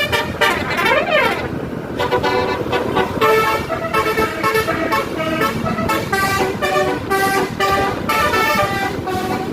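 Bus basuri telolet horn playing a tune as a run of short multi-note toots, with a pitch sweep that falls and rises again about a second in.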